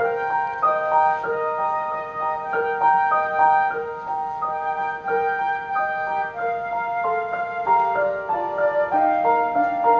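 Slow instrumental music: a melody of held notes moving step by step, with a flute-like lead over keyboard.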